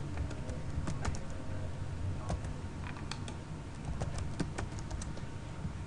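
Typing on a computer keyboard: irregular keystroke clicks, some in quick runs, over a low steady hum.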